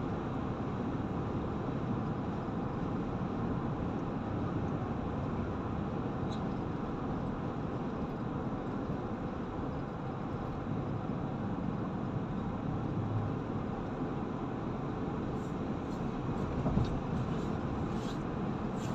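Steady road and tyre noise heard inside a car's cabin while driving at motorway speed, with a few light clicks near the end.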